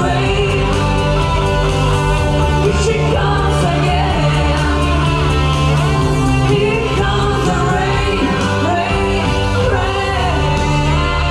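Rock music with a singer over guitars and bass, playing steadily.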